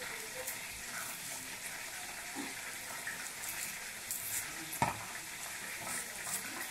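Knife peeling the papery skin off a red onion: soft crackles and small clicks over a steady hiss, with one sharper click about five seconds in.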